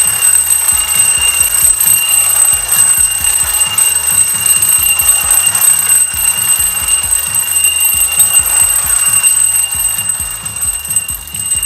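Clockwork-driven bell on a wind-up tin toy ringing continuously as the toy runs, a rapid alarm-clock-like ringing.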